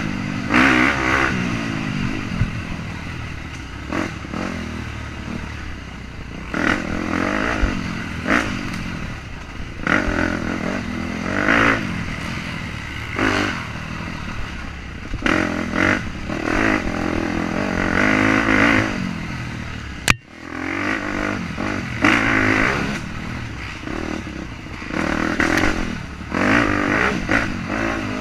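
KTM off-road motorcycle engine revving up and down in repeated surges as the throttle is worked through the trail, with chassis clatter over the bumps. One sharp knock about twenty seconds in, followed by a brief dip in engine sound.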